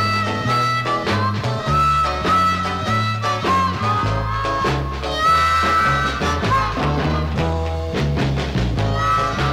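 Instrumental blues record playing: a lead line with bent, sliding notes over a stepping bass line and drums.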